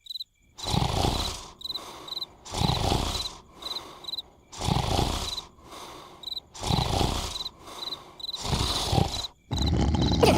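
Cartoon character snoring, a long snore about every two seconds with a shorter one between, over steady cricket chirps. Near the end a different, continuous noise takes over.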